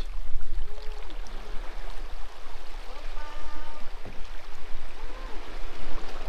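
Steady noise of moving water under a low rumble, with faint distant voices now and then.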